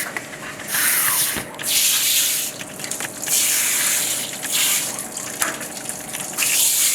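Running water splashing over a freshly cleaned chicken gizzard as it is rinsed, the flow rising and falling in several surges.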